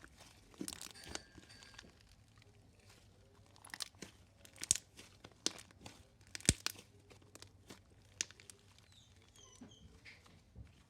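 Marshmallow slime (shaving-cream based) being worked by hand: a scattered series of sharp, wet clicks and pops, two of them much louder than the rest around the middle.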